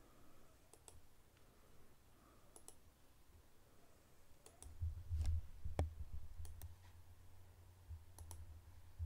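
Faint room tone with a handful of scattered sharp clicks, some in close pairs. Low thuds and rumble set in about five seconds in.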